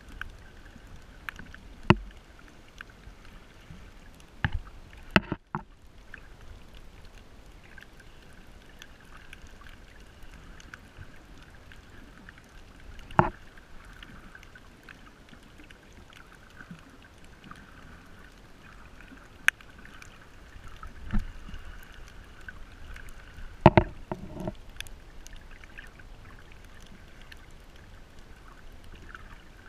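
Underwater sound picked up by a snorkeler's camera over a shallow reef: a steady, muffled hiss with a faint high band, broken by several sharp knocks and thuds, the loudest near the start, about a third of the way in and about four-fifths of the way through.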